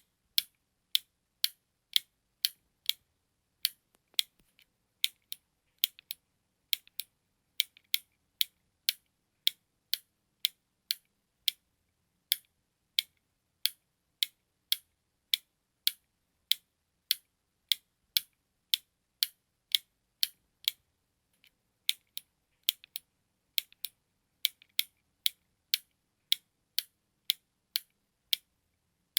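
Button clicking in a steady tick-tock rhythm: sharp, crisp clicks about two a second, pausing briefly about two-thirds of the way through.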